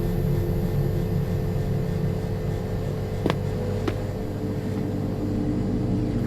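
A steady low machine hum with a few level tones in it, and two short clicks a little past the middle.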